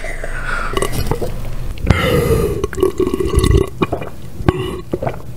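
A person burping: one long, loud burp starting about two seconds in and lasting about a second and a half, followed by a few shorter throaty sounds.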